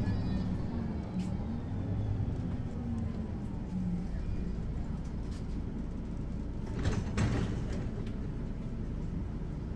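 Mercedes-Benz Citaro articulated city bus on the move, heard from inside: a steady engine and road rumble with an engine note that rises and falls. A short clattering knock about seven seconds in.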